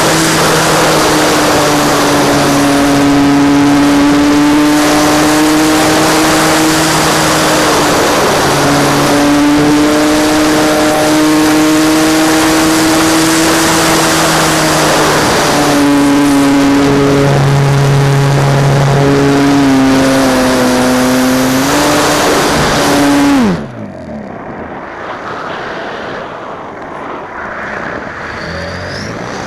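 RC model YAK-54 aerobatic plane's motor and propeller running hard, a loud buzzing tone that steps up and down in pitch as the throttle is worked. Near the end the throttle is cut: the tone drops away and the level falls, leaving quieter wind noise on the microphone.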